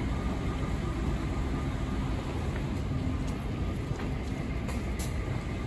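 City street traffic noise: a diesel route bus drives past with a steady low engine hum, and a few faint clicks come near the end.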